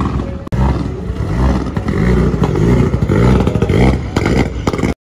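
Mitsubishi Lancer Evolution rally car's turbocharged four-cylinder engine, loud, revving up and down repeatedly as the car pulls away and passes close by. Sharp exhaust pops and crackles come in the last second, then the sound cuts off abruptly.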